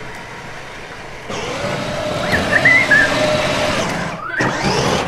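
Battery-powered Mickey Mouse ride-on toy car driving over paving stones: hard plastic wheels rattling over the pavers with the whine of its small electric drive motor. It starts up about a second in, cuts out briefly near the end, and starts again with a rising whine.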